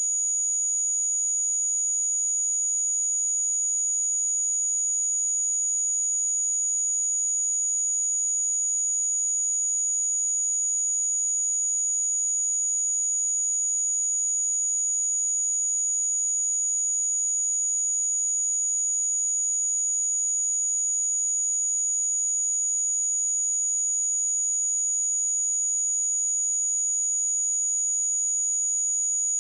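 A pure 6796 Hz sine-wave test tone, one steady high-pitched whistle at constant loudness with no other sound.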